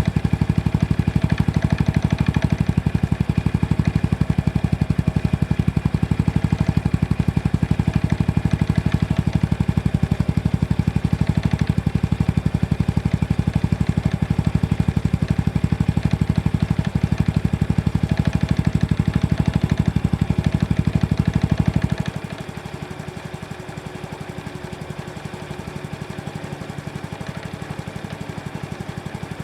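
Honda Super Cub C125 single-cylinder engine idling with a rattling (kata-kata) that comes and goes at random; the owner says it has grown louder since he bought the bike and fears it is abnormal. About 22 seconds in, the engine sound drops noticeably quieter and thinner.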